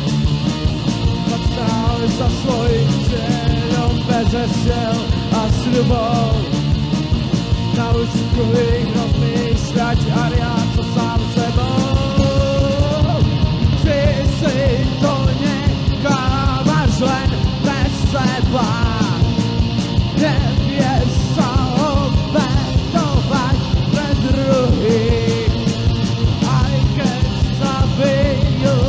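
Punk rock band playing: a steady beat with a singing voice over it.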